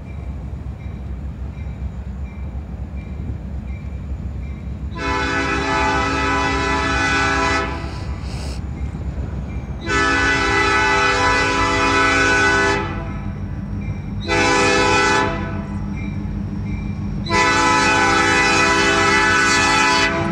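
Diesel locomotive air horn sounding the grade-crossing signal as the train approaches: two long blasts, one short, then a final long blast still sounding at the end. A low steady rumble runs underneath.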